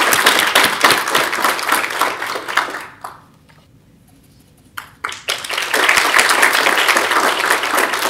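Audience applauding. The applause dies away about three seconds in, and after about two seconds of quiet it starts up again suddenly.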